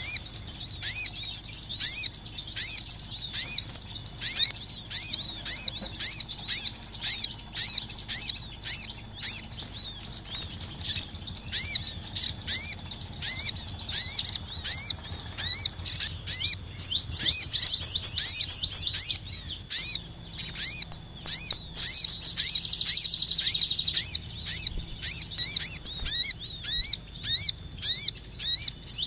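Small songbirds chirping in a quick, steady run of high, hooked calls, two or three a second, with thicker bursts of overlapping chirps part-way through: a bird-lure call recording.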